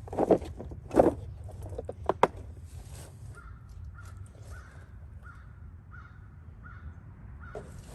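A bird calling twice loudly near the start, then two sharp clicks a little after two seconds in, followed by a fainter short call repeated about twice a second until near the end.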